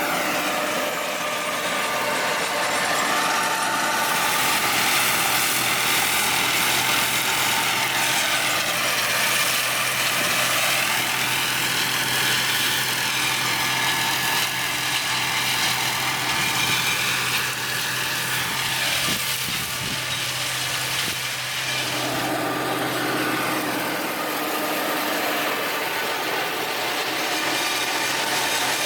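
Tractor-driven flail mower running steadily, with the drone of engine and spinning flail rotor. Its pitch sways slowly up and down as the load changes.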